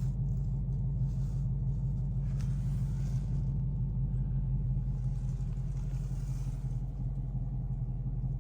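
2018 Ford Mustang GT's 5.0-litre V8 idling steadily through the stock exhaust, heard from inside the cabin as a low, even rumble.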